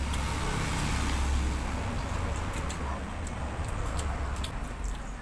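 A road vehicle passing close by: a low engine-and-tyre rumble that swells about a second in and slowly fades, with small clicks of eating by hand over it.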